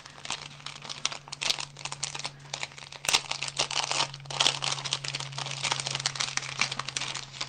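Crinkling and rustling of plastic-wrapped packs of paper flowers being handled and sorted through, with a sharper knock about three seconds in. A steady low hum runs underneath.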